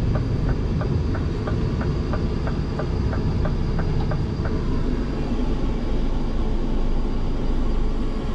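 Scania truck's diesel engine running at low speed, heard from inside the cab as a steady rumble. A light, regular ticking about three times a second runs over it and stops about halfway through.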